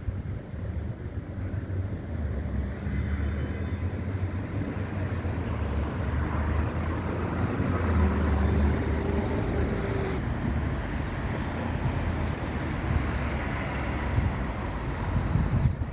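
Train running through the station, a steady low rumble with rail noise that grows to its loudest about halfway through and then eases off.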